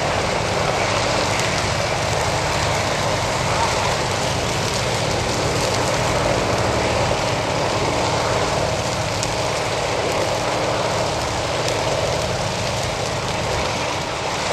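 Saw palmetto head fire burning with a steady rush and occasional sharp crackles, over the steady hum of an idling fire engine.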